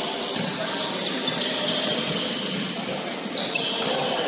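Basketball bouncing on a hardwood gym floor a few times, with short high sneaker squeaks, all echoing in a large hall.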